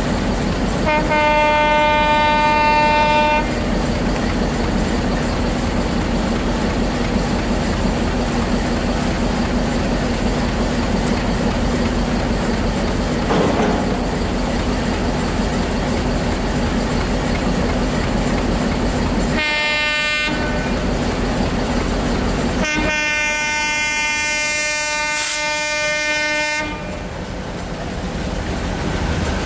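Diesel locomotive approaching with its engine running steadily, sounding its multi-tone horn three times: a blast of about two seconds, a short one, then a long one of about four seconds.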